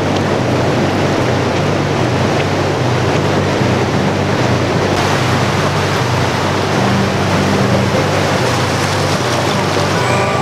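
Ocean surf breaking and washing up the shore, a steady loud rush, with a steady low rumble beneath.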